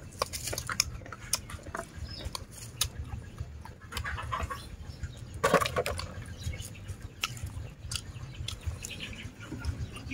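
Close-miked eating of fried chicken and fresh vegetables: chewing and crunching bites with small clicks of chopsticks, and one louder burst a little past halfway.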